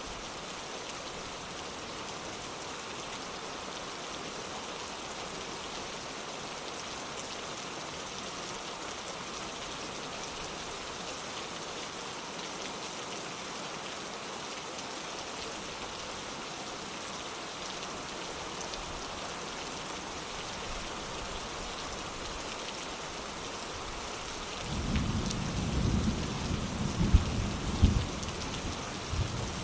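Steady rain falling, with a roll of thunder rumbling and crackling for about four seconds near the end.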